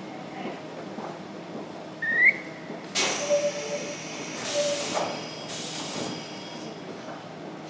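A short rising whistle about two seconds in, then three bursts of compressed-air hissing from a Meitetsu 6000 series electric train standing at the platform before departure.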